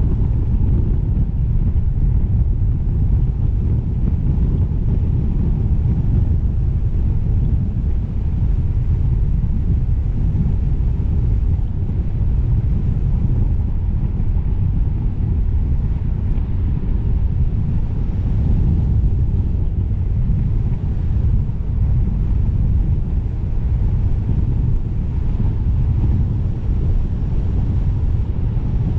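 A steady, loud low rumble of wind buffeting the microphone, with no clear engine note or other distinct sound.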